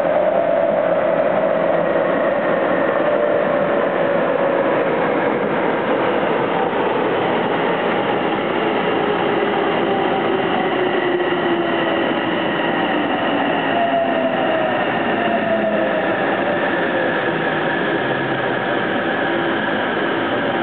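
Tsukuba Express TX-1000 series electric train heard from inside the car: its Toshiba VVVF inverter motor whine falls in pitch over several seconds, then again from about fourteen seconds in, over steady wheel and rolling noise as the train slows.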